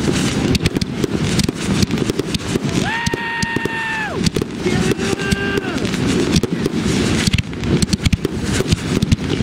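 Aerial fireworks bursting overhead in a dense barrage: continuous rapid crackling and popping with frequent sharp bangs. Twice, about three and five seconds in, a high drawn-out tone lasting around a second rises over the crackle.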